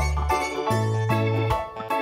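Instrumental background music: plucked notes over a low bass line.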